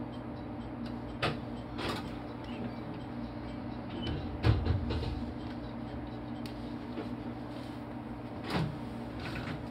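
Steady low hum of a stationary JR Kyushu 813 series electric train, heard from inside its driver's cab, with a few short knocks and one louder clunk about four and a half seconds in, like a door or fittings being handled.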